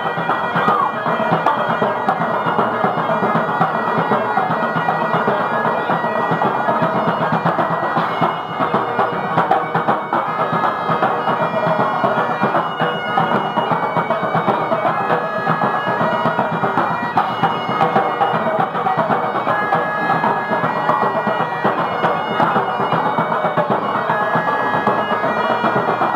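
Two Great Highland bagpipes playing a tune together over their steady drones, with drums beating along.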